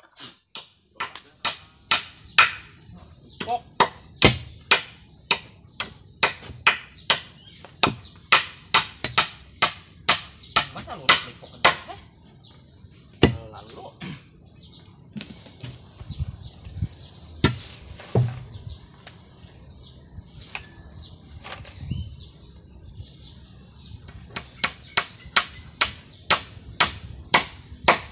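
Repeated sharp chopping strikes of a short blade working at the foot of an upright bamboo post, about two a second, in runs broken by pauses. A steady high drone of insects runs beneath.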